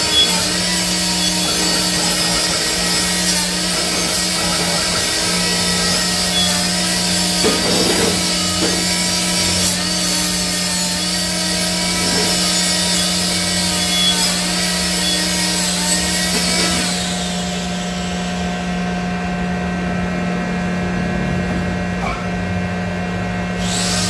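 Hydraulic press's motor and pump running with a steady hum while leaf-spring leaves are bent, with a few light metal knocks; about two-thirds of the way through the higher hiss drops away, leaving a duller hum.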